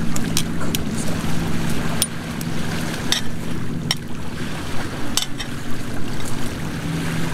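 Lake waves breaking on a pebble shore, a steady loud rushing that the cook calls pretty big waves making a lot of sound. A few sharp crackles from the small wood fire burning under the pan stand out every second or so.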